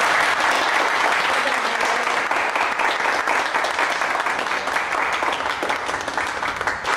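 A group of people applauding, with dense steady clapping.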